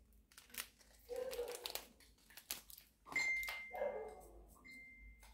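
Clear plastic wrapping crinkling and rustling as a watch box is unpacked, with two short voice-like sounds and, from a little past halfway, a thin steady high whine that breaks off once.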